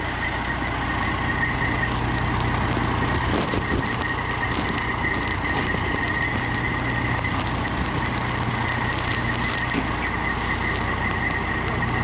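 Fire engine running steadily, a low engine hum under a constant high whine, with a few faint crackles about three to five seconds in.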